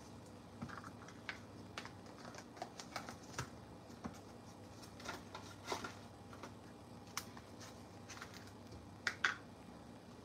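Scattered light clicks and taps, irregularly spaced, with a louder double click near the end.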